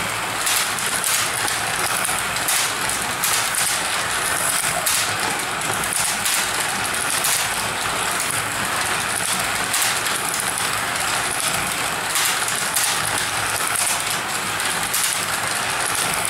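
Carrera Digital slot cars lapping a plastic track: a steady whirring rush of their small electric motors and wheels, with irregular clicks through it.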